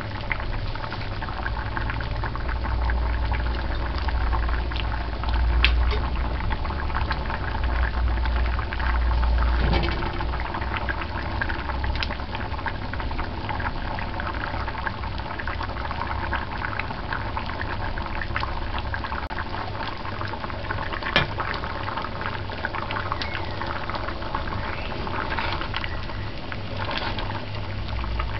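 Thick stew of peas and saltfish in coconut milk boiling uncovered in a metal pot on medium-high heat: steady bubbling with many small pops and an occasional sharper pop. A low rumble lies under it for the first ten seconds or so.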